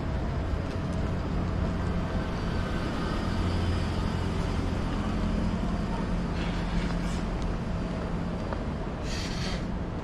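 City street ambience at night, a steady low hum of vehicle engines running, with a short hiss of air about nine seconds in.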